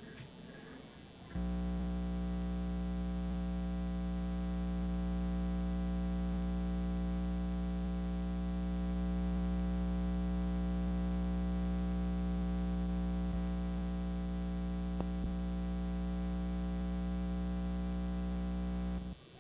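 A steady low hum or drone made of several held tones. It starts suddenly a little over a second in, holds at an even level with no change in pitch, and cuts off just before the end.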